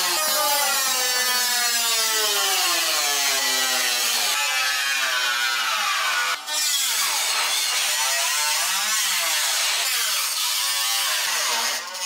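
Corded angle grinder with a cutting disc slicing through a car's sheet-metal wheel-arch lip, trimming the arch back. Its whine sinks in pitch and then swings up and down as the disc bites and eases, with a brief dip about six seconds in.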